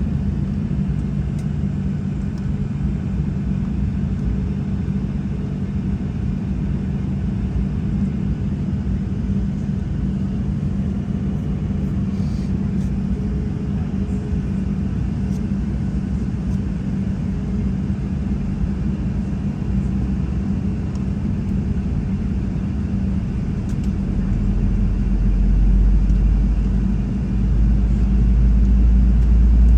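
Steady low hum inside the cabin of a Boeing 737-700 on the ground, with a deeper rumble building up over the last five or six seconds.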